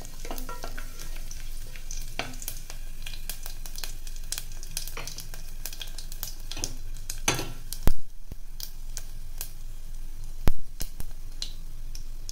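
Whole spices (cumin seeds, bay leaves, cinnamon stick, dried red chillies) crackling in hot mustard oil in a stainless steel pressure cooker: a steady sizzle with many sharp pops, two of them much louder, about 8 and 10½ seconds in. A wooden spatula stirs the spices at the start.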